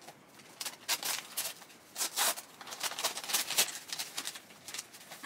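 Rustling and scratching of soft white packing material as a plant is unwrapped by hand, in a run of short irregular rustles.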